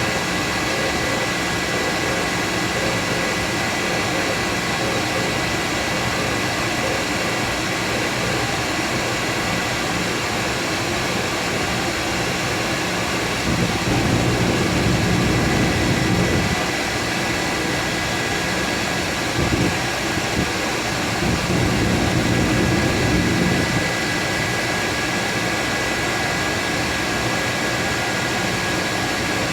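Surface grinder running steadily with a thin whine, its aluminum oxide wheel, loaded with rouge and wax, making a light finishing pass over the part without downfeed. The sound swells twice for about three seconds each, around the middle and a little later.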